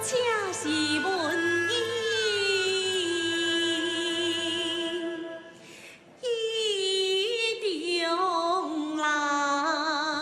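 Taiwanese opera (gezaixi) singing: one voice holds long drawn-out, ornamented notes with a wavering vibrato. It breaks off briefly about six seconds in, then starts the next sung phrase.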